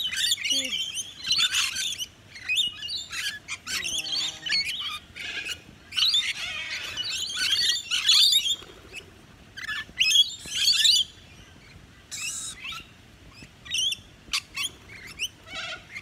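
A flock of rainbow lorikeets chattering and screeching while they feed, with a fast jumble of short, shrill, high calls that thins out for a few seconds past the middle.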